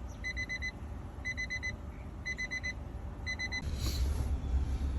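Electronic beeping in groups of four quick high beeps, one group about every second, stopping about three and a half seconds in. A short rustle follows, over a steady low rumble.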